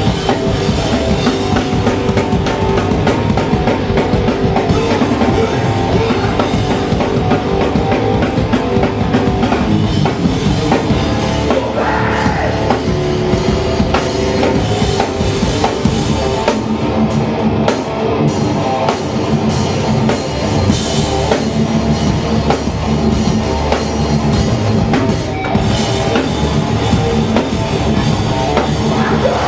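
Hardcore punk band playing live: loud distorted guitar over fast, busy drumming, with no break.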